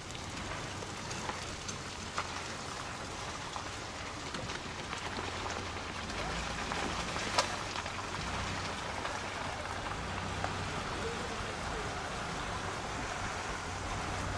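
Steady patter of light rain and dripping water outdoors, with scattered sharp ticks, and a low engine hum joining about six seconds in.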